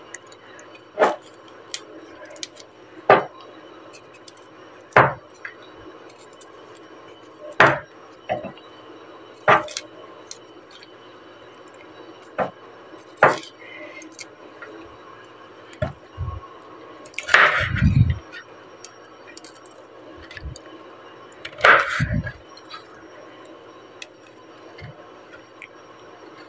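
Kitchen knife cutting broccoli, the blade knocking on a wooden cutting board in single chops at irregular gaps of a second or more, about a dozen in all; the loudest come a little past halfway and a few seconds later, with a duller thud.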